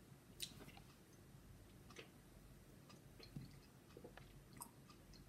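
Faint mouth sounds of a person tasting wine: small wet clicks and smacks as the wine is worked around the palate, with a sharper click about half a second in.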